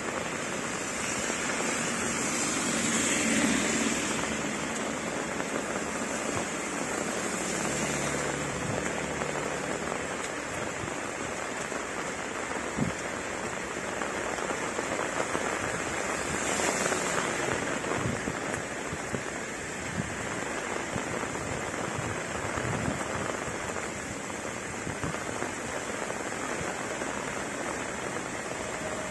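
Heavy tropical rain falling steadily on asphalt and leaves. It swells a little about three seconds in and again around seventeen seconds, with a few sharp taps of drops in the second half.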